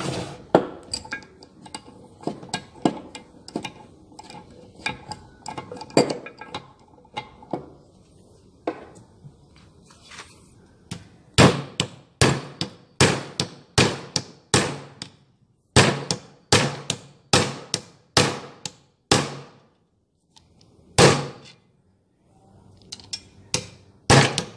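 Hammer blows on a bolt set through a white disc lying in a steel vise. The first half has lighter taps and metal clinks. From about halfway comes a run of hard, sharp strikes, about two a second, then a few more single blows near the end.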